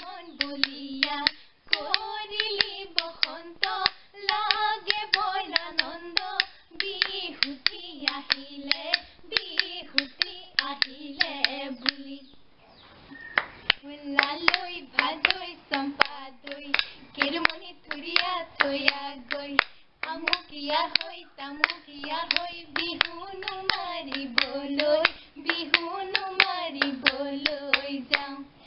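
Women singing an Assamese Bihu naam folk song, kept in time by rhythmic hand claps and the clacks of a toka, a split-bamboo clapper. The singing breaks off briefly about halfway through.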